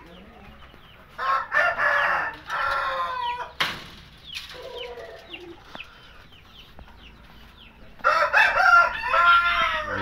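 A rooster crowing twice, each crow a few syllables ending in a long falling note, with a sharp knock just after the first crow.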